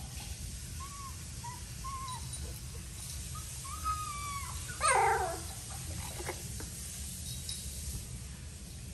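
Young puppies whimpering: a few short, high squeaks in the first seconds, a longer whine about four seconds in, and a louder yelp that slides down in pitch about five seconds in.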